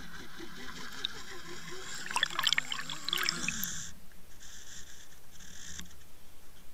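Water noise heard through a submerged underwater fishing camera as it is pulled through shallow water. There is a cluster of crackles and clicks about two to three seconds in, a faint wavering hum at first, and then a hiss that cuts in and out.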